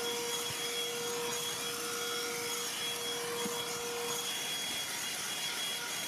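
Black+Decker BDH2000PL 20-volt cordless Pivot handheld vacuum running steadily, vacuuming a car's interior: an even rush of air with a steady motor hum that fades out about four seconds in.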